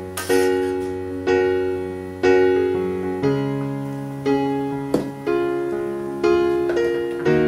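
Background piano music: soft sustained chords struck about once a second, each fading away before the next.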